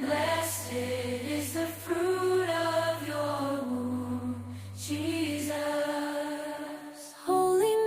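Slow chanted singing over a steady low drone, with no clear words; the drone drops out about six seconds in, and the singing comes back louder just before the end.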